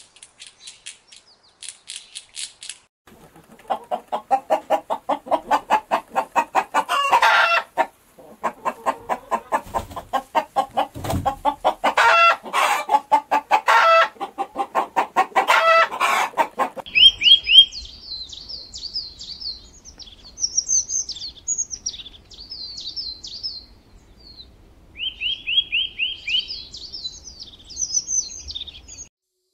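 Chickens clucking in quick repeated pulses, with a few louder squawks, after a brief opening of high rattling clicks. About 17 seconds in, this gives way to small birds chirping and twittering over a low hum.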